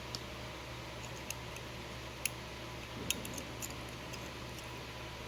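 Faint, scattered small metal clicks and ticks, about one a second, from a steel probe working inside a disassembled Medeco lock core to get the springs out.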